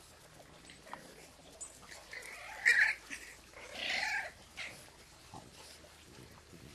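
Puppies crying out in play: a short, sharp, high cry about two and a half seconds in, then a longer cry about a second later.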